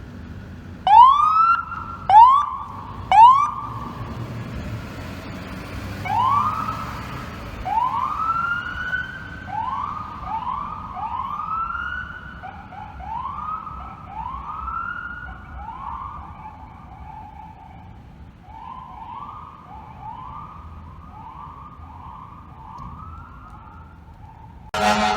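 Emergency vehicle's electronic siren sweeping up in pitch over and over. Three loud short whoops come first, then a long run of rising sweeps that come faster and grow fainter. A loud horn cuts in at the very end.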